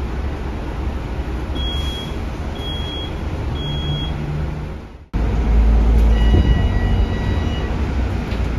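Cabin noise inside a Scania K320UB bus with its Scania DC9 engine: a steady low engine and road rumble, with three short high beeps in the first half. After a sudden break about five seconds in, the rumble is louder and a faint steady whine sounds for a second or two.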